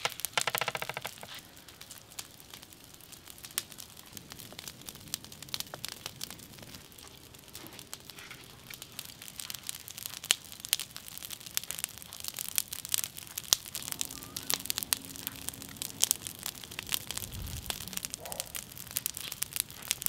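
Charcoal fire crackling and popping under roasting meat, with many sharp irregular pops over a faint hiss.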